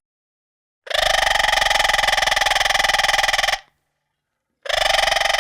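Parrot mimicking a telephone ringing: two long, buzzy rings of nearly three seconds each, about a second apart, the second starting near the end.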